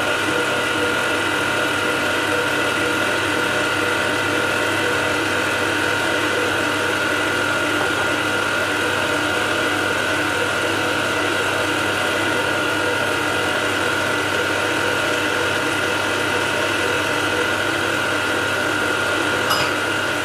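Kenwood Chef stand mixer running at a constant speed, its motor and gearing giving a steady whine as the beater turns cake batter in the steel bowl. A brief click sounds about a second before the end.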